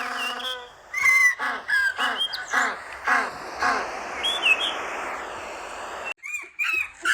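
Birds calling in a quick series of short, arching chirps over a steady hiss. The sound cuts off abruptly about six seconds in, and similar chirps start again straight after.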